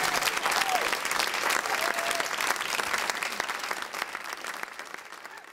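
Theatre audience applauding at the end of a dance performance, with a couple of brief calls or whoops early on. The clapping slowly thins and fades.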